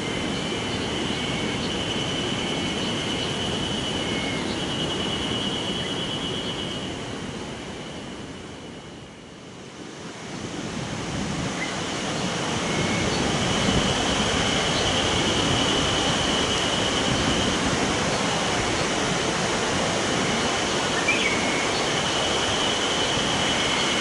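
River water running over stones makes a steady rushing haze. Over it comes a steady high buzzing insect chorus, which the uploader takes for cicadas already calling in late May. The chorus comes and goes in long stretches. The whole sound fades down about a third of the way in, then returns louder.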